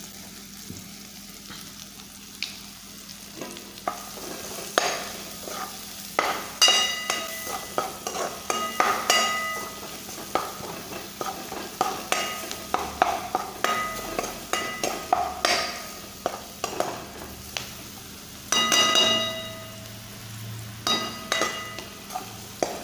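A spatula stirs and scrapes a metal pan of chopped vegetables frying in oil, over a steady sizzle. The scraping strokes start a few seconds in, come irregularly, and make the pan ring.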